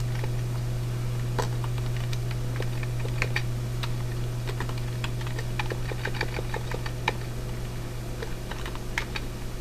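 Computer keyboard typing: irregular key clicks as figures are entered, over a steady low hum.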